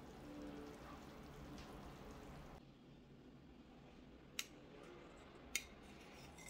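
Faint room tone, then two sharp clicks about a second apart: a metal spatula and knife knocking against a ceramic plate as a portion of potato gratin is slid onto it.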